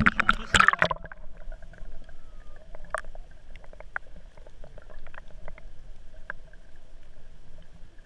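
Shallow sea water splashing and sloshing against the camera held at the surface: a loud splash in the first second, then scattered small clicks and ticks of water.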